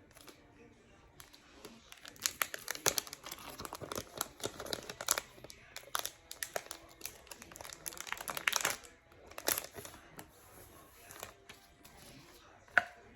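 Mail packaging crinkling and crumpling as it is handled, with some tearing, in dense crackling runs that die down after about ten seconds. A single sharp click near the end.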